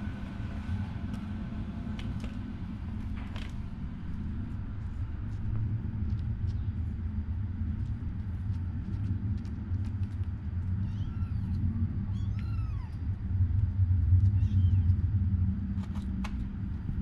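Kittens mewing a few times, short high calls about two thirds of the way through, over a steady low rumble and small clicks.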